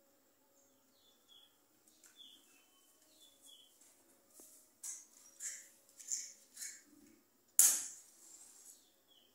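Faint, short bird chirps, a few of them falling in pitch, in the first half. Soft handling sounds follow in the second half, with one sharp clack about seven and a half seconds in, the loudest sound.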